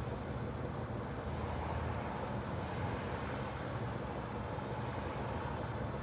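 Steady road and engine noise inside a moving van's cabin.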